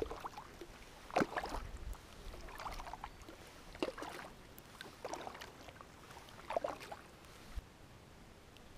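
Double-bladed paddle strokes dipping and splashing into the water beside a cedar strip canoe, alternating sides with a splash about every second and a quarter, about six strokes before it eases off near the end.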